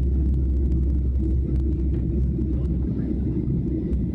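Steady low rumble of jet engines and airflow heard inside an airliner's cabin during the climb after takeoff.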